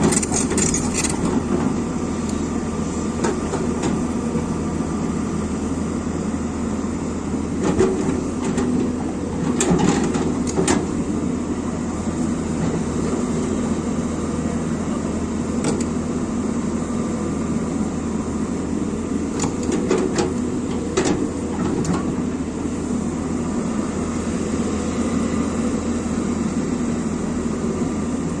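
Excavator engine running steadily under load, with a few sharp metallic clanks scattered through, a cluster about a third of the way in and more past the middle.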